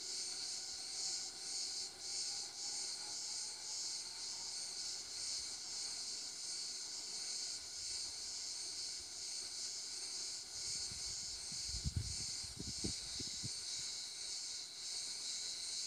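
A steady, high-pitched chorus of insects, shrilling with a fine, even pulse. A few soft low thumps come about three-quarters of the way through.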